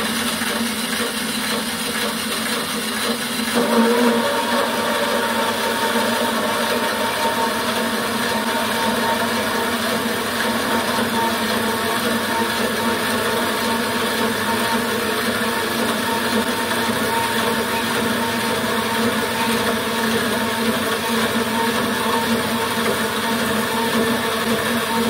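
Servo-motor-driven Craftsman 14-inch band saw running steadily. It grows louder about three and a half seconds in, as its blade bites into a solid 6061 aluminum round and keeps cutting at about 1,000 feet per minute.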